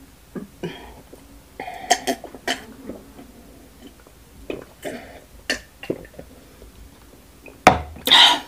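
A person gulping water from a glass, with a string of short, soft swallowing sounds. Near the end comes a sharp knock as the glass is set down, then a loud, breathy sound from the open mouth.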